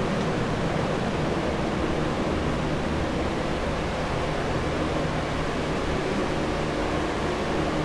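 Water-damage drying equipment, commercial dehumidifiers and an air mover, running with a steady rush of air and a low motor hum.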